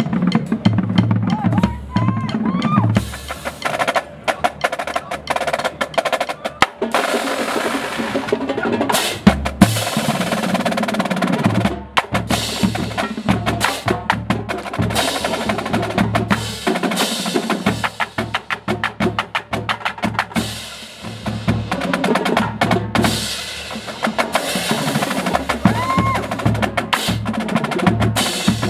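Drum corps cymbal line playing pairs of crash cymbals together with a marching drumline: dense snare-drum strokes and bass drums sounding low notes at several pitches, in a continuous percussion exercise.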